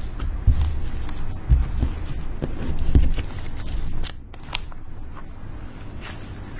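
Clear glitter slime being folded and squeezed by hand against a tabletop, with sticky crackling and squishing, a few dull presses, and sharp little pops about four seconds in.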